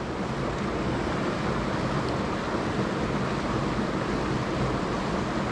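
Mountain stream water rushing, a steady, even wash of sound.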